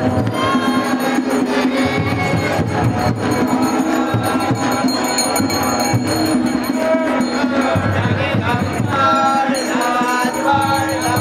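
Devotional group chanting (kirtan) with drums and percussion playing along, loud and continuous.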